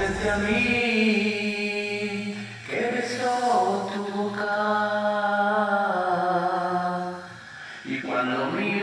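Slow music of long held, choir-like chords, with a change of chord about two and a half seconds in and again near the end.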